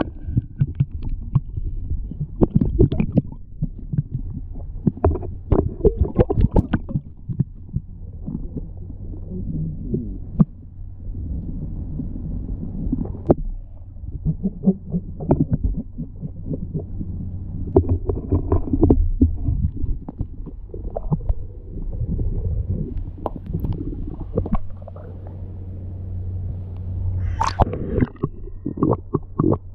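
Muffled underwater sound picked up by a camera held below the surface: a steady low hum under irregular dull knocks and thuds from water movement and handling, with one sharper, brighter knock near the end.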